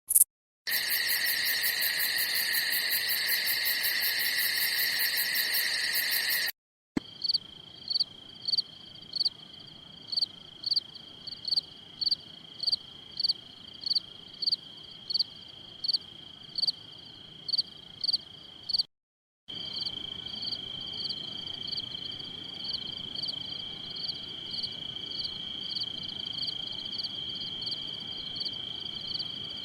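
Crickets chirping, three separate recordings one after another with brief silent gaps between them. First a loud, dense, continuous high trill for about six seconds; then a steady high tone with sharp chirps repeating a little under twice a second; then, after a gap near the two-thirds mark, a quieter chorus of the same kind with slightly faster chirps.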